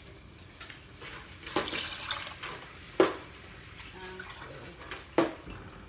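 A glass of water poured into a stainless steel pot of fried onions and peas, splashing for about a second, with a few sharp clinks, the loudest about halfway through and near the end.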